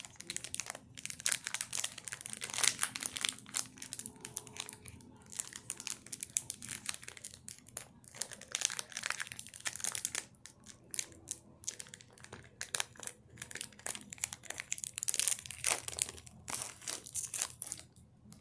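Foil wrapper of a Pokémon trading card booster pack crinkling and crackling in quick, irregular runs as it is worked open by hand, with a short lull about ten seconds in.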